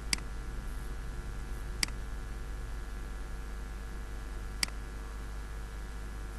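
Three sharp computer mouse clicks, the second about a second and a half after the first and the third about three seconds later, over a steady low hum.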